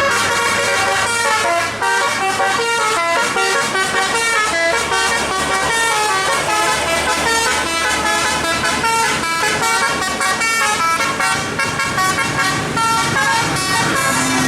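Bus 'telolet' musical air horn playing a fast multi-note tune, the pitch stepping from note to note, over a steady low engine hum.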